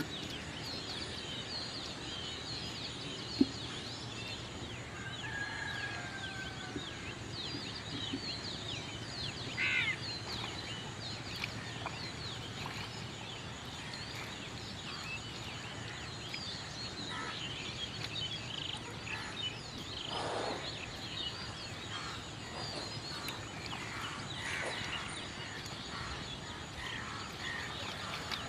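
Outdoor ambience full of many small birds chirping and calling, with a few longer calls among the chirps. A faint steady low hum runs underneath, and there is one sharp click about three and a half seconds in.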